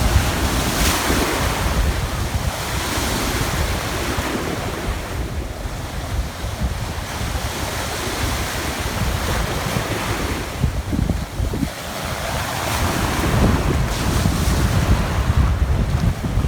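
Sea waves breaking and washing ashore in surges every few seconds, with strong wind buffeting the microphone in a low rumble.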